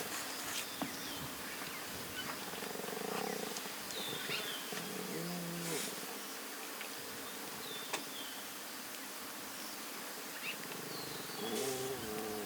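Lions giving short, pitched calls twice, about five seconds in and again near the end, over a steady outdoor hiss with a few high bird chirps.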